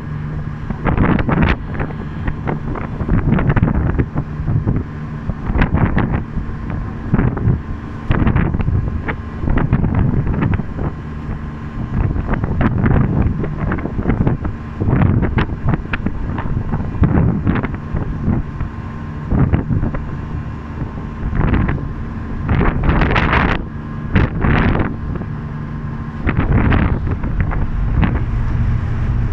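Strong gusty wind buffeting the microphone in repeated irregular rushes, over a faint steady low hum.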